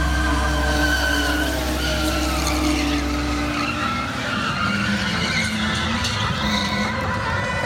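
A stunt vehicle skidding with its tyres squealing in shifting, wavering pitches while its engine runs hard.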